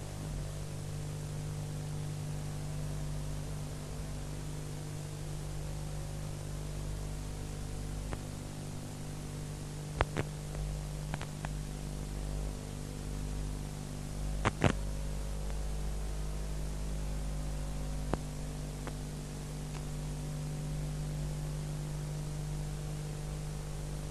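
Steady electrical hum and hiss from an old film transfer's blank soundtrack, with a few sharp clicks and pops about ten seconds in, again around fourteen seconds, and once more near eighteen seconds.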